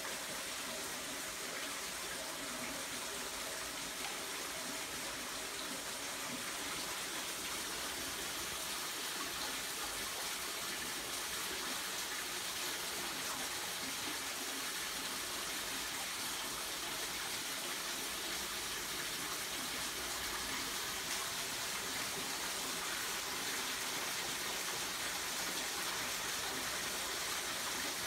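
Spring water running steadily, an even rushing noise that grows slightly louder toward the end.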